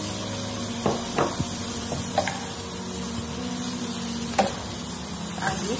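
Wooden spatula stir-frying spinach and chicken in coconut milk in a hot nonstick wok: a steady sizzle with a few knocks of the spatula against the pan.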